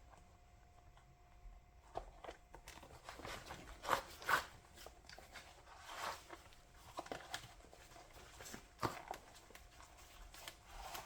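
Old rubber inner tube being pulled by hand out from between a stroller tyre and its plastic wheel rim: faint, irregular rubbing and scuffing strokes that begin about two seconds in, the loudest a pair near the middle.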